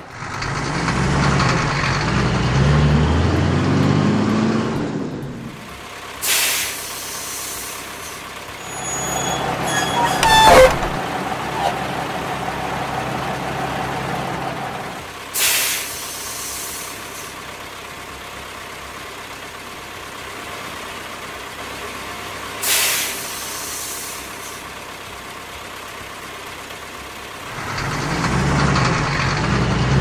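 Heavy truck sound effects: a big truck engine revving up in pitch at the start and again near the end, with three short air-brake hisses in between and a sharp knock about ten seconds in.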